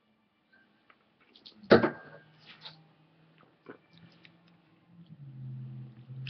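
A wine glass set down with a single sharp knock about two seconds in, after a drink of wine, followed by a few faint clicks. A low steady hum starts near the end.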